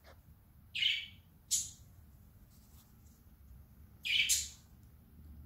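A long-haired Turkish Angora cat licking its fur close by: three short lick sounds, about a second in, again half a second later, and a longer, loudest one about four seconds in.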